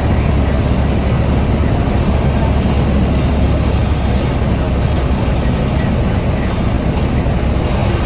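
Piper Dakota's piston engine and propeller running steadily at low power as the plane rolls out on the runway, heard from inside the cockpit: a loud, even drone with a heavy low rumble.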